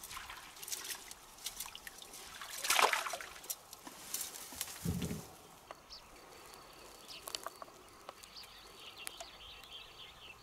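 Collapsible mesh keep net being handled at the edge of a shallow rocky pool: water trickling and splashing with rustles and clicks, a louder rush of water about three seconds in and a dull thump near five seconds. After that, a faint steady high insect buzz with small chirps.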